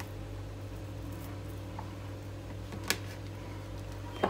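Steady low hum with two brief clicks about a second apart near the end as onion rings are placed by hand over herring pieces in a plastic food container.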